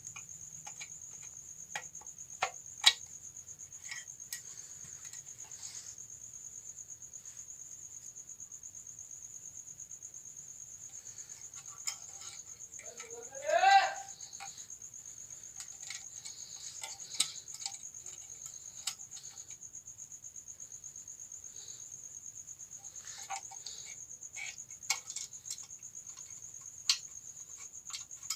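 Scattered small clicks and taps of an electric iron's parts and wiring being handled and fitted, over a steady high-pitched drone. About halfway through, one short squeak rises sharply in pitch.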